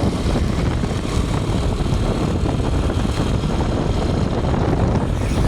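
A large vehicle's engine running with a steady low drone and road noise; no horn sounds.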